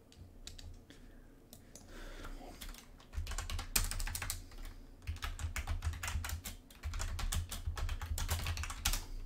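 Typing on a computer keyboard: a run of quick key clicks, sparse at first and steady and fast from about three seconds in.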